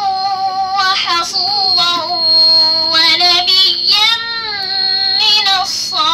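A young girl's voice chanting Quranic recitation into a microphone, in several long, drawn-out melodic phrases with short breaks for breath. A thin, steady, high-pitched whine runs underneath.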